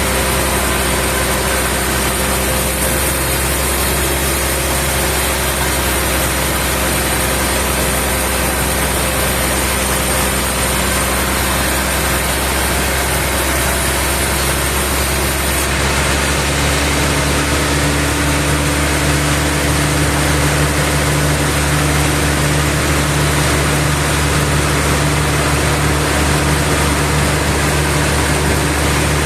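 Sawmill machinery running steadily, a continuous engine hum; about halfway through the sound changes to a stronger, lower hum.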